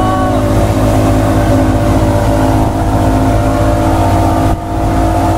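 Motorboat's outboard engine running steadily at towing speed, with water rushing in the churned wake behind it. The sound briefly dips about four and a half seconds in.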